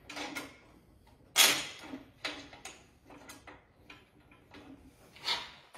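Scattered metallic knocks and clicks with some scraping as a transmission bell housing on an engine-and-gearbox assembly is handled; the loudest knock comes about a second and a half in.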